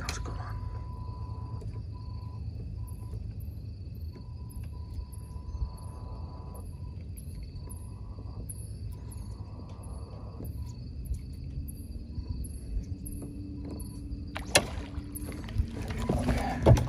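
Night insects, likely crickets, chirping in an even high-pitched rhythm about twice a second over a steady low rumble. A single sharp knock comes near the end, followed by a louder burst of knocking and rustling.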